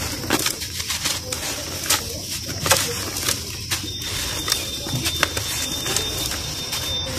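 Dry red dirt clumps crumbled by hand, the crumbs and grains sifting and pattering onto a heap of loose dirt, with many small crisp crackles as the clumps break.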